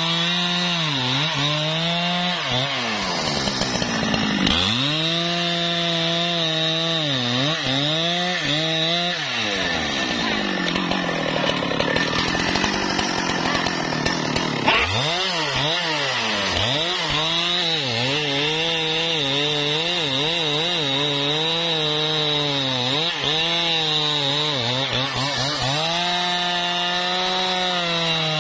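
Husqvarna 395 XP 94 cc two-stroke chainsaw cutting through wood at high revs. Its engine pitch dips and recovers again and again as the chain bites and loads in the cut, with longer stretches of heavy, rough-sounding cutting.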